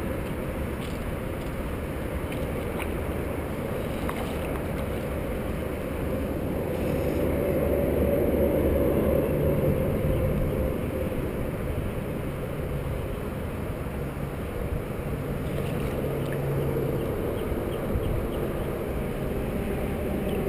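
Steady low rumbling wind noise on an action camera's microphone, with a faint hum that comes and goes.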